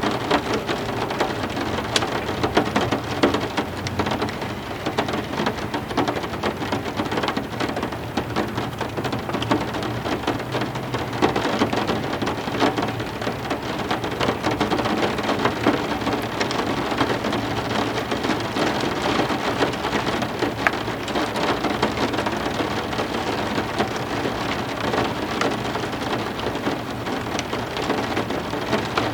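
Steady heavy rain, a dense hiss of drops with many sharp close drop ticks, over a low continuous thunder rumble.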